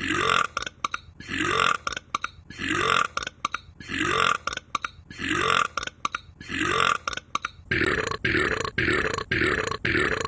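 A long run of loud belches, one after another at about one every second and a bit, then quicker at about two a second from around eight seconds in.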